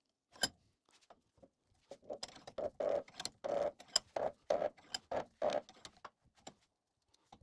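Bench vise being screwed shut to press a tight-fitting ball bearing onto a gearbox shaft: a sharp click about half a second in, then a rapid run of short creaks and clicks, about three a second, as the handle is turned, dying away near the end.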